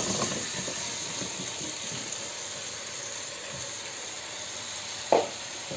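Prawns and spices sizzling in a pot on high heat while chunks of gourd drop in, a steady frying hiss that eases slightly as the pot fills, with a sharper knock about five seconds in.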